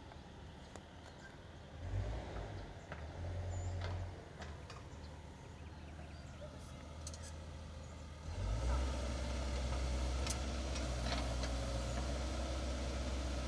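Excavator's diesel engine running, picking up about two seconds in, easing off around four seconds, then revving up again just past eight seconds and holding steady. Occasional sharp knocks sound over it.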